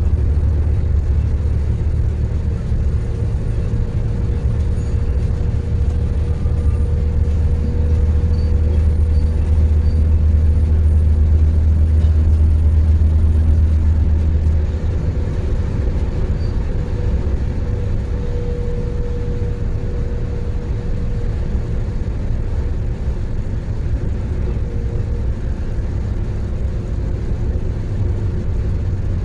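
Alstom LINT diesel railcar heard from inside the passenger compartment: the diesel engine and running gear give a steady low rumble. About halfway through, the low engine drone drops noticeably in level.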